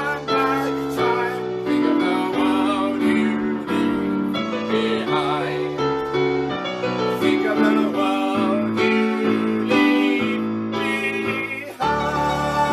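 Piano music: sustained chords with a melody line over them, breaking off briefly near the end and then starting again.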